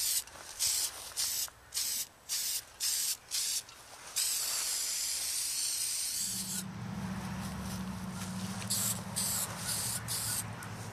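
Aerosol spray-paint can hissing: a run of about seven quick short sprays, then one longer spray of about two seconds. From about six seconds in a low steady hum joins, with a few more short sprays near the end.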